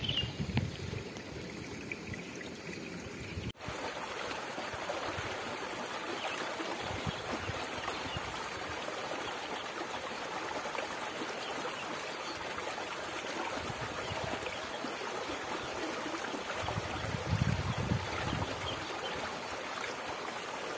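Steady rush and trickle of water running in an irrigation ditch, with a few low bumps near the end.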